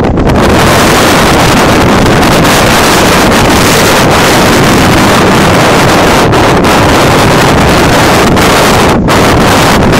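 Strong wind blowing straight onto the microphone: a loud, steady rushing and rumbling noise that nearly overloads the recording, easing for a moment near the end.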